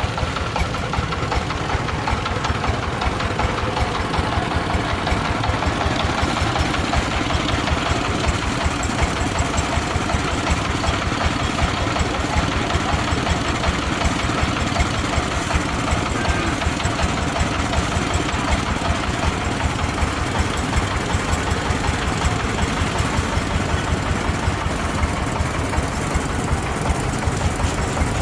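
Mobile rice threshing machine running steadily, its engine chugging with a fast, even beat under a broad rushing noise.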